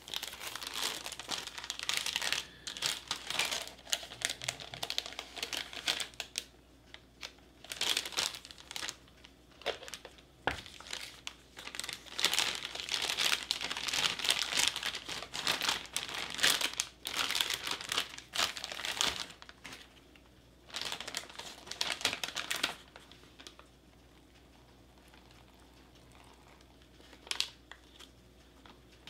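Plastic flameless ration heater pouch crinkling and rustling as it is handled and folded, in irregular bursts. It goes quiet for a few seconds near the end, then rustles briefly once more.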